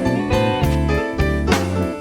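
Background music: plucked guitar over bass and drums, with a steady beat.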